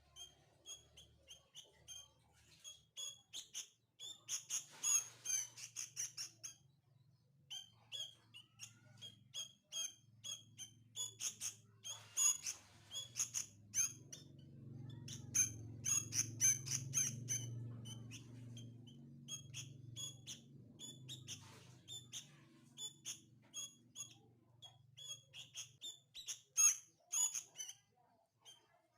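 Sooty-headed bulbul (kutilang) chick giving short, high chirps over and over, the begging calls of a hand-reared nestling waiting for food.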